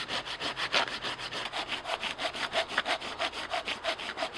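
Silky Gomboy folding saw cutting across a cherry log in quick, even back-and-forth strokes, about five or six a second, making stop cuts.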